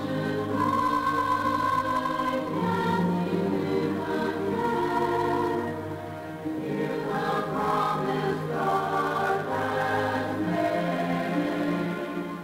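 Recorded choir singing a hymn in long held notes, with a brief break between phrases about six and a half seconds in.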